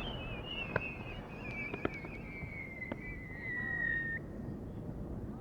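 A firework whistle: one high whistling tone that slowly falls in pitch for about four seconds and then cuts off suddenly. A few faint pops sound over it.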